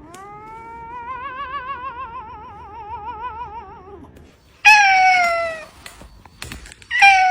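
Cat meowing: a long, drawn-out yowl of about four seconds whose pitch wavers quickly and evenly, then a short loud meow about a second later, and another beginning near the end.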